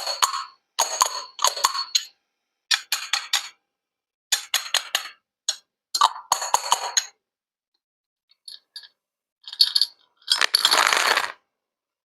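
Small hard objects clinking and tapping together in several short runs, with bright ringing tones. Near the end there is a brief, fuller burst of water sound lasting about a second.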